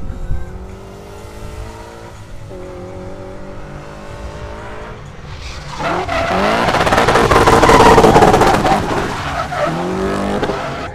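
V8-swapped BMW E30 drift car revving hard as it drifts toward and past, its rear tyres squealing and skidding. The engine is faint at first, gets loud about six seconds in, is loudest around eight seconds, then eases off, with rising and falling rev sweeps throughout.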